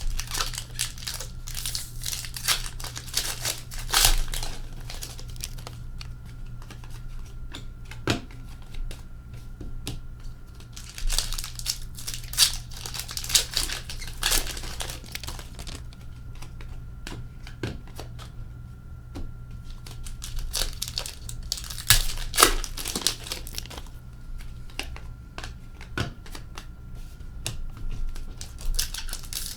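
Packaging of a 2020-21 Upper Deck Artifacts hockey card hit box being torn open and the card wrappers crinkled by hand, in irregular bursts of crinkling and tearing. A faint steady hum lies underneath.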